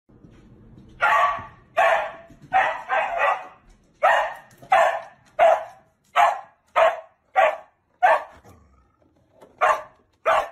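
A dog barking repeatedly in short, sharp barks, about fourteen of them at roughly one or two a second, with a short pause near the end.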